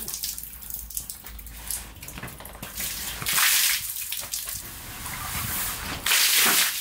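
Water pooled on a pop-up canopy roof pouring off and splashing onto the ground as the canvas is pushed up with a broom, with dripping in between and two loud gushes, about three and six seconds in.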